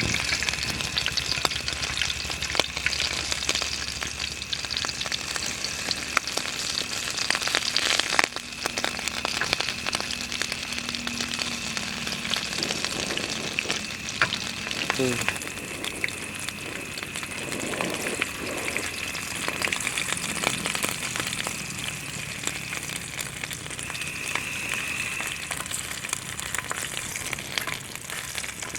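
Food sizzling and frying in a pan, a dense steady crackle with scattered clicks and stirring sounds.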